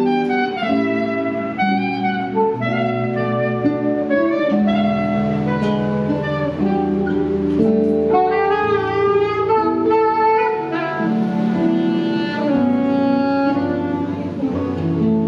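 Live jazz: a saxophone plays a melody with sliding notes over acoustic guitar accompaniment.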